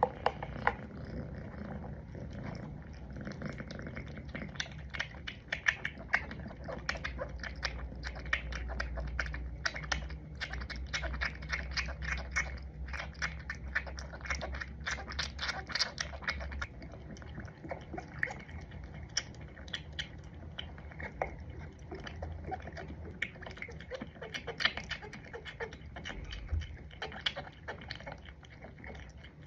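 A kitten suckling milk from a feeding bottle: quick, irregular clicks and smacks at the nipple, several a second, going on throughout.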